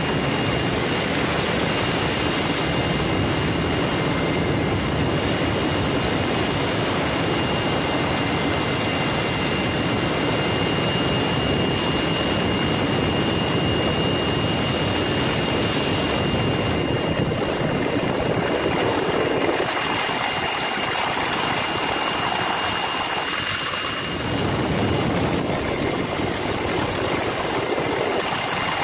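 Helicopter turbine engine and rotor running steadily in flight, a constant loud noise with a high steady whine, heard at the open cabin door.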